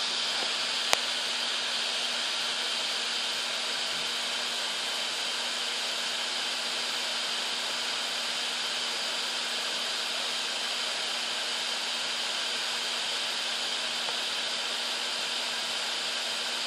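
Steady hiss of HHO gas and hexane burning at a stove's brass burner jets, with the compressed air feed shut off. A faint steady hum sits underneath, and a single sharp click comes about a second in.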